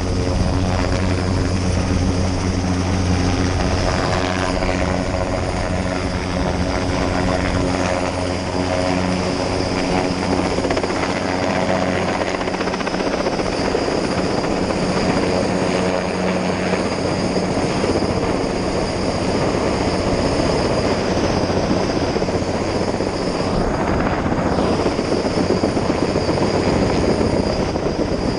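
Sikorsky S-58T turbine helicopter hovering close by: a steady low rotor thrum mixed with a noisy rush. The thrum's pitched lines fade from about halfway, and the broad rush carries on.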